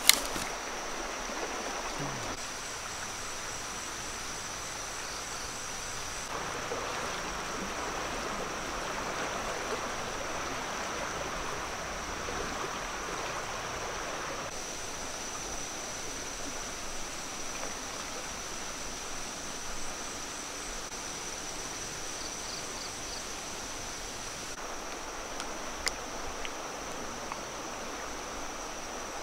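Steady rush of flowing stream water, with a continuous high-pitched whine over it. There is a sharp knock right at the start and a faint click near the end.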